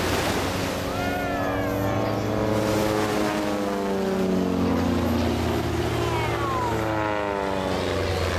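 Two Van's RV-8 aerobatic planes' piston engines and propellers droning overhead, several engine tones sliding slowly down in pitch as the aircraft pass.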